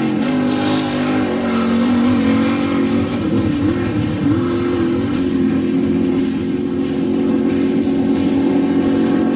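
Off-road desert race buggy's engine revving hard, its pitch rising and falling over the first few seconds, then holding a steady high note at speed.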